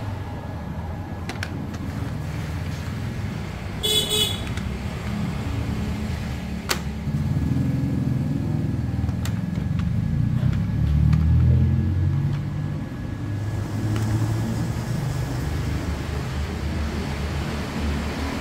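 A low, uneven mechanical rumble, like an engine running, with a brief high horn-like toot about four seconds in and a few faint clicks.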